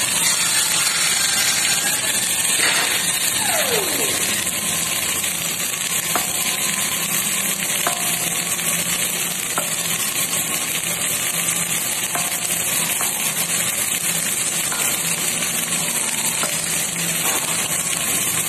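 Flux-cored arc welding: the arc crackles and sizzles steadily as a bead is laid into a gouged-out butt joint to repair a defective weld.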